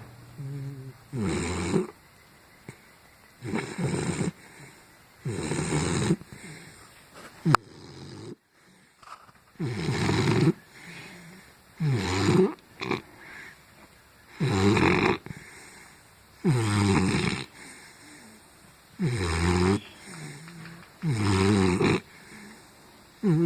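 A pit bull snoring in deep sleep, one loud snore about every two seconds. A single sharp click comes about a third of the way through, followed by a brief pause before the snoring resumes.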